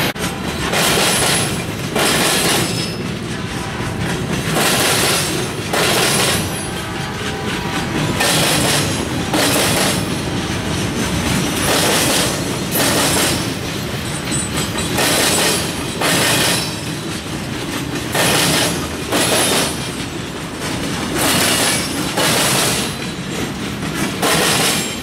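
Freight train boxcars rolling past close by: a steady rolling rumble with the wheels clattering in paired bursts about a second apart, repeating every two to three seconds as each car's wheel sets go by.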